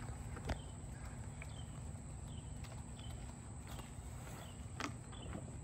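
Quiet footsteps on a concrete driveway and a couple of light knocks while a folding hard truck bed cover is carried by hand. Short faint high chirps repeat in the background.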